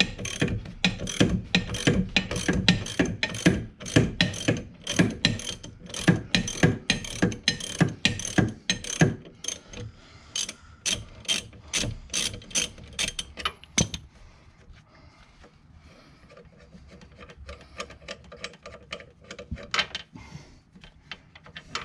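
Hand ratchet wrench clicking in rapid, repeated strokes as the 24 mm nut on the rear shock bolt is backed off. The clicking stops about two-thirds of the way through, and only a few faint clicks follow.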